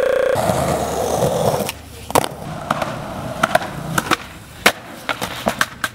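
Skateboard wheels rolling on concrete, then a series of sharp clacks and cracks from the board's tail popping and the deck and wheels landing on pavement. The loudest crack comes about two-thirds of the way in.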